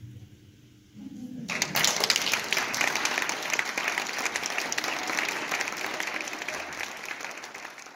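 The last note of the dance music dies away, then about a second and a half in an audience breaks into applause, dense clapping that tapers off near the end.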